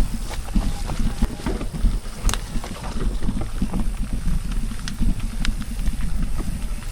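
Mountain bike rolling down a rough, slippery dirt trail: a steady jumbled low rumble with scattered rattles and clicks, and one sharp click about two seconds in.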